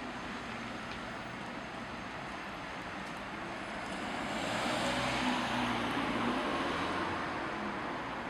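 Road traffic: a vehicle passing by, its noise swelling about four seconds in and fading away.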